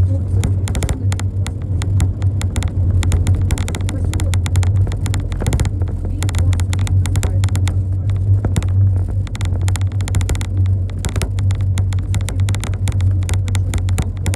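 Interior noise of a moving tour bus: a steady low engine and road drone, with frequent irregular clicks and knocks.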